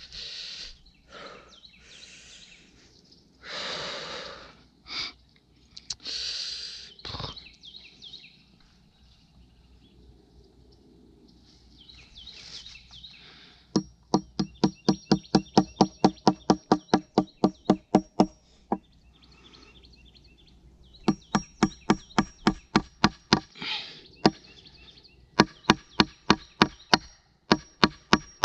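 Several seconds of rustling and scraping, then rapid mechanical knocking in three bursts of a few seconds each, about nine knocks a second, with a faint steady high whine: a power tool working during a shelter build.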